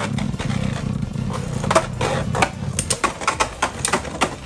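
Two Beyblade Burst spinning tops whirring across a clear plastic stadium floor, with frequent sharp, irregular clacks as they hit each other and the stadium wall.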